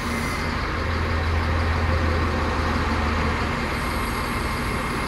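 SHANTUI L55-B5 wheel loader's diesel engine running as the loader moves on a lowboy trailer, with a deep low drone that swells from about half a second in and eases back after about three and a half seconds.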